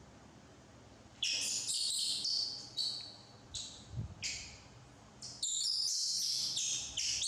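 High-pitched animal calls: short bursts from about a second in, then running on without a break from about five and a half seconds in.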